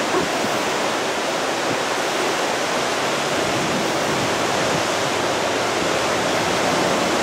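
Steady, loud rushing of severe derecho straight-line winds driving through trees and across open ground, carrying blowing rain.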